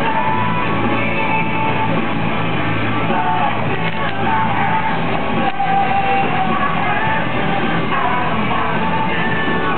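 Music with a singing voice, steady and loud throughout.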